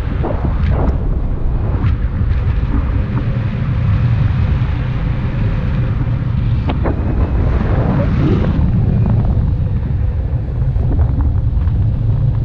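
Wind rushing over an action camera's microphone in paragliding flight: a loud, steady low rumble, with a few brief knocks.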